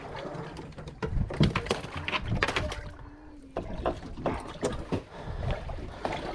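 Irregular knocks and thumps on a fishing boat as a hooked kingfish is hand-lined in alongside.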